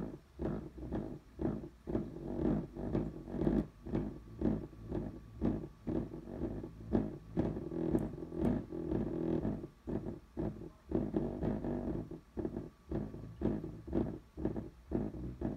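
Small test speaker driven by the repaired Sunfire MK II subwoofer amplifier, playing a low-pitched pulsing signal at a few pulses a second: the amplifier passing audio after its blown output and power-supply parts were replaced.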